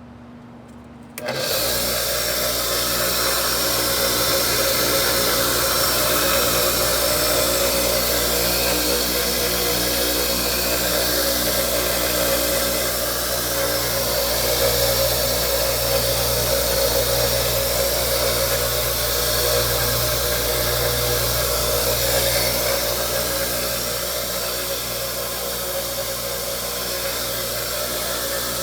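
6-inch Dayton double-end bench grinder switched on about a second in, then running steadily.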